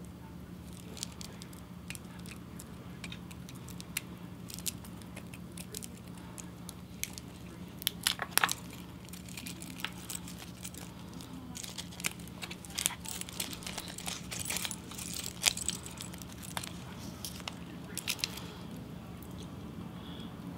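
Handling noise: scattered crinkles and small clicks as a plastic price tag is worked off a woven stainless-steel watch bracelet and the watch is turned in the hands, with a cluster of sharper clicks about eight seconds in. A low steady hum runs underneath.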